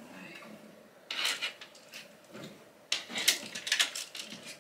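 Clothes hangers clacking and scraping along a closet rod as a shirt is hung up, with clothes rustling: one short burst about a second in, then a cluster of sharp clicks and rattles from about three to four seconds in.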